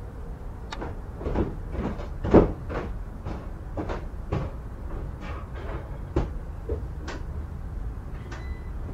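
A run of irregular knocks and bumps, about two a second, the loudest about two and a half seconds in, from someone moving around and handling things in a basement, with a brief squeak near the end.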